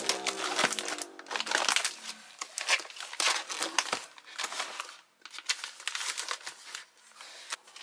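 Freeze-dried ration pouches crinkling as they are picked up, shifted and set down in a row: irregular bursts of rustling with short pauses.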